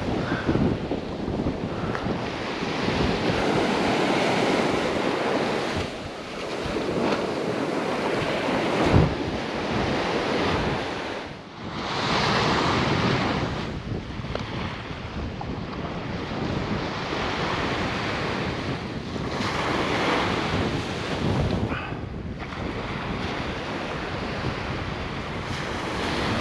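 Small waves washing up on a sandy beach, rising and easing every few seconds, with wind buffeting the microphone. A brief thump about nine seconds in.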